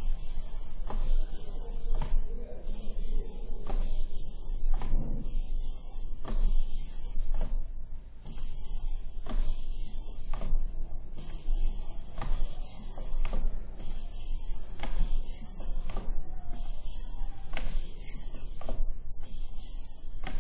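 The servo motors of a small four-legged walking robot whir and click as it walks forward. The whir and clicks rise and fall in a regular rhythm with each step.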